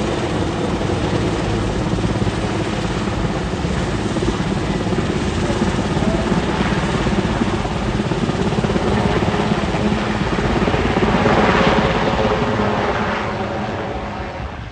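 Cougar helicopter of the Super Puma family in flight, a steady, loud rotor and turbine sound that swells to its loudest about three-quarters of the way through, then fades as it moves away.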